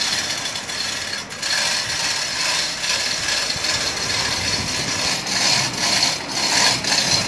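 Hand-operated chain hoist being hauled, its chain running steadily through the pulley block as it lifts a skinned cow carcass.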